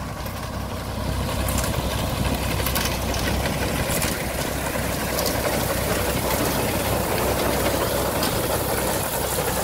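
1958 Fordson Dexter tractor's three-cylinder diesel engine running steadily as it pulls a 1941 McCormick reaper and binder cutting grain, with scattered light clicks from the binder's ground-driven mechanism.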